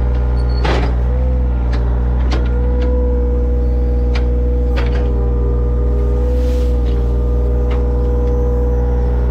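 Heavy equipment engine running steadily at a constant speed, with a few sharp knocks and clanks.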